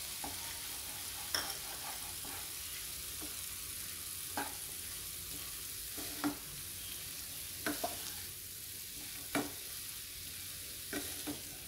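Wooden spatula stirring cauliflower and green peas in a non-stick frying pan, with short knocks and scrapes against the pan every second or two over a steady sizzle of frying.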